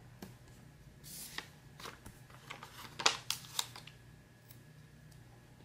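Paper and sticker sheets handled by hand: a run of short rustles, crinkles and light taps between about one and four seconds in, loudest around three seconds, over a faint steady hum.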